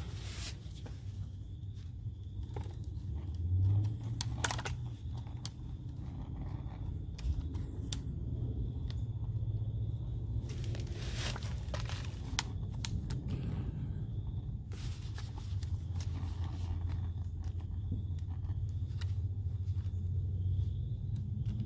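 Scattered small metal clicks and scrapes as a snapped socket adapter is worked out of an impact driver's hex chuck, over a low steady hum.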